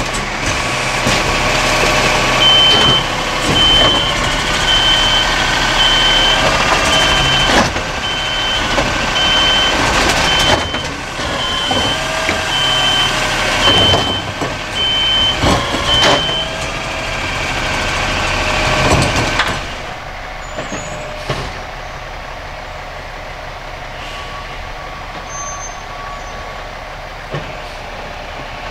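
DaDee Scorpion automated side-loader on a Peterbilt 320 garbage truck working a cart: diesel engine running, hydraulics whining up and down as the arm grips, lifts and dumps it, with several loud clanks and a backup-style alarm beeping a little faster than once a second. After about twenty seconds the hydraulics and beeping stop, leaving a quieter steady truck engine.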